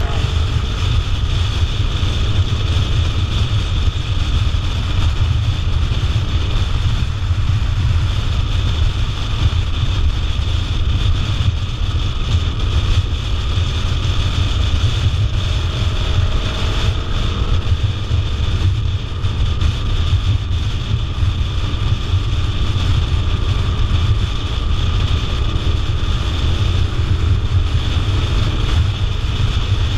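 Adventure motorcycle riding steadily at road speed: a constant rush of wind buffeting the microphone over the bike's engine and tyre noise.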